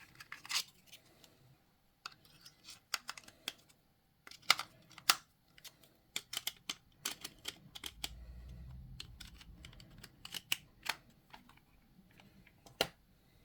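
Irregular sharp plastic clicks and taps from batteries being fitted into a remote control and its battery cover being handled. There is a brief low rumble of handling about eight seconds in.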